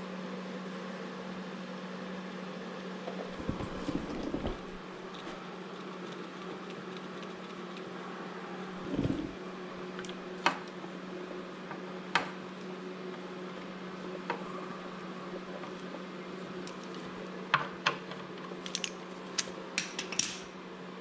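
Steady low hum of shop background noise, with scattered light clicks and metallic knocks from tools and parts being handled, busiest near the end.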